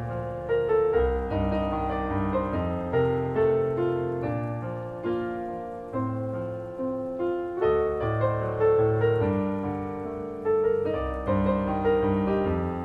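Background piano music: a steady run of notes and chords, each struck and then fading.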